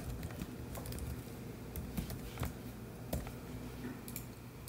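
Computer keyboard keystrokes: a handful of separate key clicks at uneven intervals, over a low steady hum.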